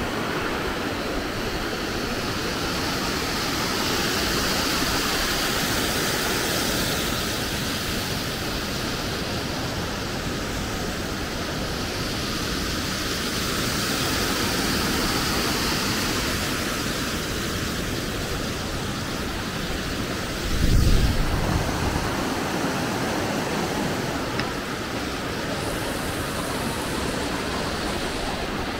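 Steady rush of falling and cascading water from waterfalls, with a brief low thump about two-thirds of the way through.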